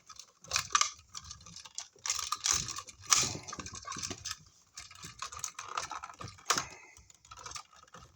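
Irregular clicks, scrapes and light rattles of electrical wire and hand tools being handled at a wall receptacle box, with a sharper click about three seconds in and another near six and a half seconds.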